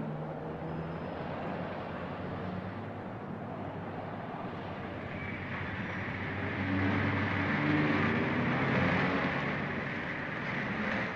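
City street traffic: a steady wash of car engines and tyre noise, swelling as a sedan passes close, loudest about two-thirds of the way through.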